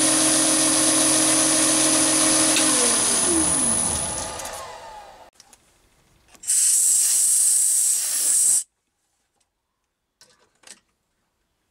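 Chinese mini lathe running with a steady whine, then switched off: its pitch falls as the spindle winds down, from about three seconds in. Then a hiss of air blown into the bore for about two seconds, clearing out the stainless steel chips, and a couple of faint clicks near the end.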